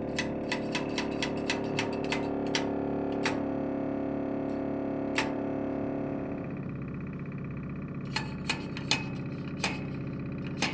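Organ reed pipe sounding a sustained note while its tuning wire is tapped with a tuning tool, giving sharp clicks about three a second at first, then a few single taps. The note changes about six and a half seconds in, as the pipe is brought to pitch.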